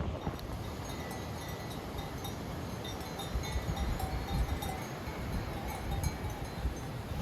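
Bells on grazing livestock clanking on and off in short ringing notes, with wind rumbling on the microphone.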